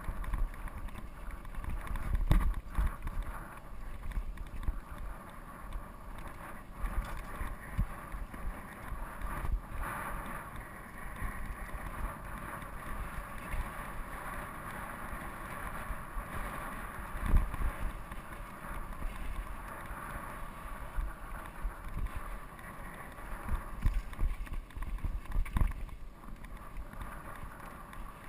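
Tyres of a steel hardtail mountain bike rolling over a dry, rocky dirt trail, with wind buffeting the microphone and a few sharp knocks as the bike hits rocks and bumps.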